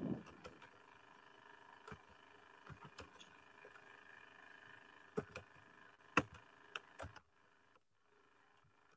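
Computer keyboard keys clicking: about ten irregular, faint taps as a line of CSS is typed, over a faint steady hum that drops away about seven seconds in.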